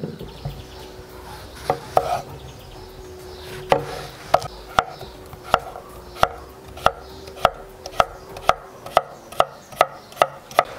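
Kitchen knife chopping a young zucchini on a wooden cutting board: a few scattered knocks at first, then a steady run of sharp strokes through the flesh onto the board, about two a second and quickening toward the end.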